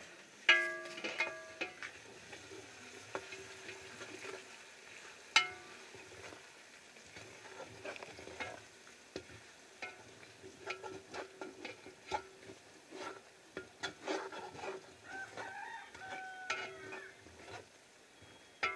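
A slotted spatula stirring and scraping onions frying in oil in a large aluminium pot, over a faint sizzle. The spatula knocks irregularly against the pot; the loudest strikes, about half a second in and about five seconds in, leave the pot ringing briefly.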